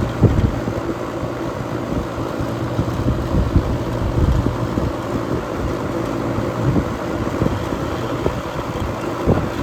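Outdoor central air-conditioner condensing unit running: a steady low hum under the rush of the condenser fan's discharge air, which buffets the microphone.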